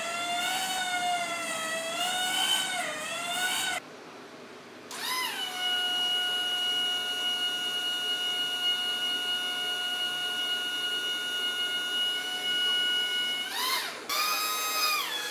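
Telehandler's motor whining as the machine is driven up to the attachment. The pitch wavers at first, then after a short break it rises to a steady whine held for about eight seconds, and climbs again near the end.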